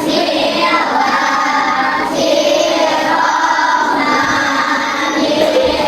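A class of children reciting a prayer together in a sing-song unison chant, in long held phrases with short breaks between them.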